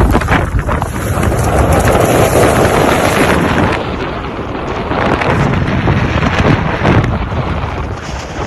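Strong blizzard wind buffeting the microphone: a loud rushing with heavy low rumble that swells and eases in gusts.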